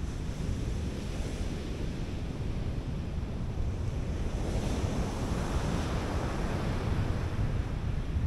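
Sea surf breaking on a sandy beach, with wind rumbling on the microphone. One wave swells to its loudest about five seconds in.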